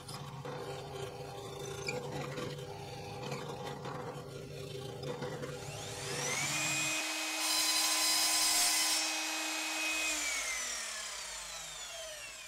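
Benchtop drill press running and boring into wood with a steady motor hum. About six seconds in, a higher whine spins up and holds while the bit cuts, then winds down a little before the end.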